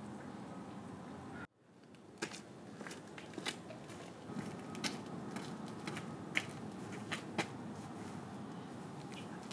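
Faint outdoor background that cuts out suddenly about a second and a half in and fades back. Then irregular light clicks and taps as a bicycle and its gear are handled.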